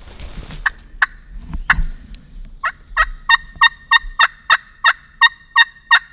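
Hunter's turkey call yelping like a hen: a few scattered clucks, then a run of about a dozen loud, evenly spaced yelps about three a second. Calling to draw a gobble from distant gobblers.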